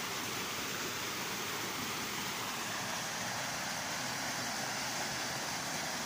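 Small waterfall pouring over a ledge of stone slabs into a stream: a steady rush of falling water.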